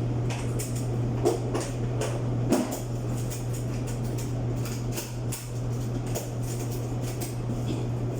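Clothes dryer running on test with its newly replaced drum housing bearing: a steady low motor hum with irregular knocks and clicks as the drum tumbles, two louder knocks in the first few seconds.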